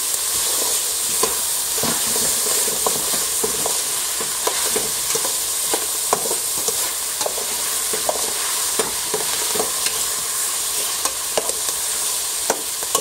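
Diced vegetables and pancetta sizzling in a stainless steel stockpot while being stirred, the utensil scraping and clicking against the pot irregularly, about once or twice a second, over a steady hiss of frying.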